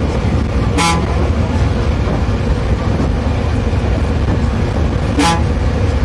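Bus horn giving two short toots, about four and a half seconds apart, over the steady low rumble of the moving bus's engine and road noise heard from the cabin.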